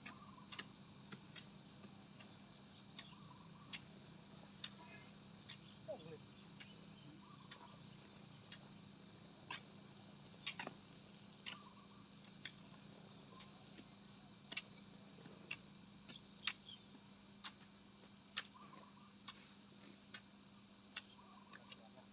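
Sharp, irregular clicks, roughly one every half second to a second, over a faint steady hum.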